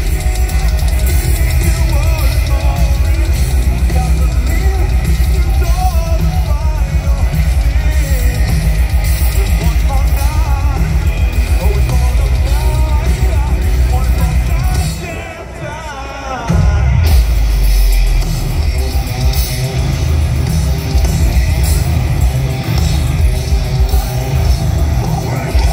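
A heavy metal band playing live through a PA, with loud drums, guitars and singing. About fifteen seconds in the band drops out for about a second and a half, then comes back in at full volume.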